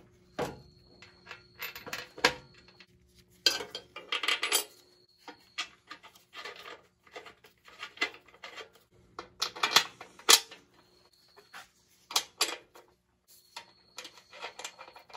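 Small metal parts clinking and clattering by hand as bumper-bracket bolts and shims are fitted: irregular light clicks and rattles, with busier bursts about four seconds in and again around ten seconds.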